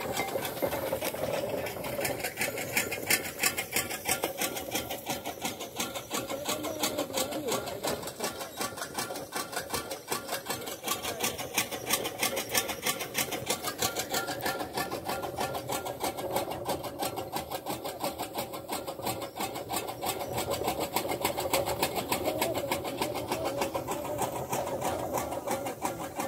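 Donkey-driven gear toka (fodder chaff cutter) running, its gearing clattering with a fast, even ticking that keeps up steadily.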